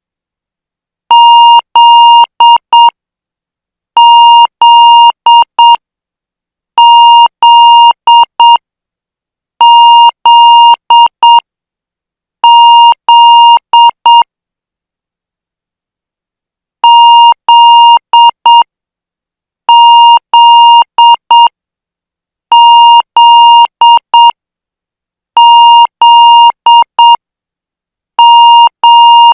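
Computer-generated Morse code practice tone, a steady beep near 1 kHz keyed in long and short elements at 8 words per minute. The characters come in groups of five, with a longer pause between the two groups.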